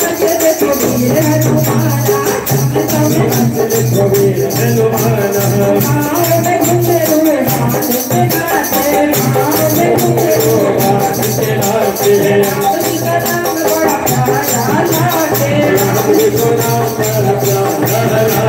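Live Hindu devotional song to the Mother Goddess (a Mata bhajan): voices singing over a dholak drum and other percussion keeping a steady beat.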